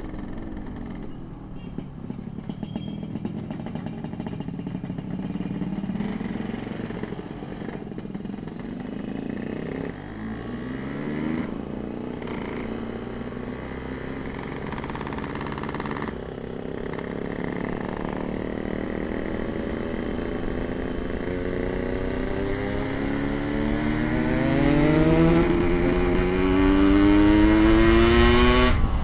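Yamaha RX-King 135cc single-cylinder two-stroke engine with a noisy exhaust, ridden gently at low revs, its pitch wavering up and down. In the last ten seconds it steadily revs higher and gets louder, peaking near the end.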